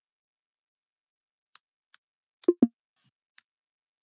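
Computer keyboard keystrokes: a few faint clicks, then two loud knocks in quick succession about two and a half seconds in, and a last faint click.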